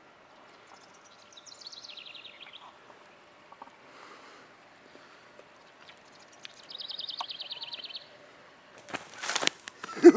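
Wild songbirds trilling in the background, one falling trill and then one rapid trill. Near the end comes a loud, short rustling scuffle as a chicken is grabbed off the ground.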